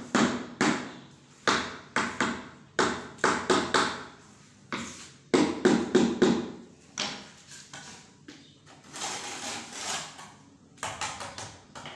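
A hand tool tapping and knocking on floor tiles and mortar during tile repair: sharp, irregular taps, one to three a second, with a short scraping of a trowel over mortar about nine seconds in.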